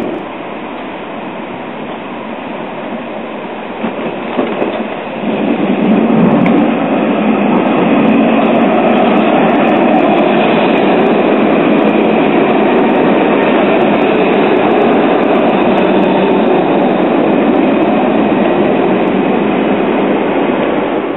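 Alstom Citadis tram running along a station platform: a steady rumble of motors and steel wheels on rail, louder from about five seconds in.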